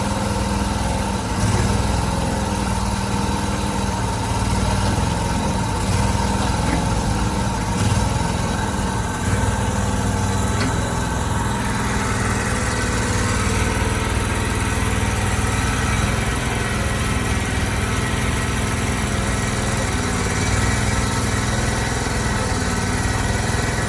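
Gasoline engine of an Allmand TLB 220 compact loader backhoe running steadily.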